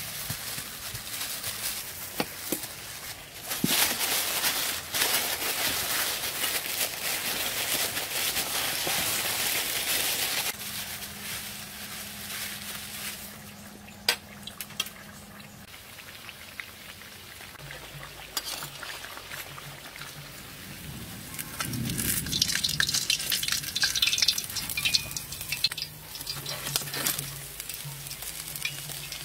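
Plastic wrap being handled and crinkled, with a sharp click about halfway through; near the end, oil sizzling and crackling as a sticky-rice cake deep-fries in a wok.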